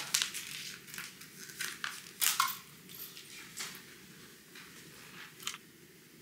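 Plastic pouch of liquid herbal medicine being torn open and crinkled in the hands: a series of sharp crackles and rustles, loudest a little past two seconds in, then sparser and fainter.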